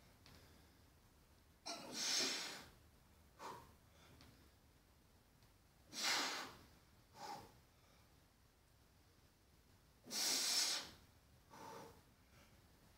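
Forceful breathing of a weightlifter doing back squats with a 90 kg barbell, one breath cycle per rep. Three loud breaths come about four seconds apart, each followed about a second later by a shorter one.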